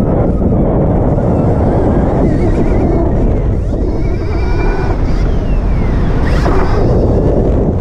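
Stark Varg electric motocross bike riding a dirt track: wind buffeting the microphone and the rumble of tyres on dirt, with the electric motor's high whine rising and falling with the throttle.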